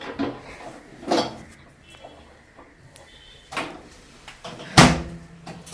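Two short electronic beeps from the new microwave oven's control panel about a second apart, then a sharp clunk such as its door shutting, amid handling sounds and a few low words.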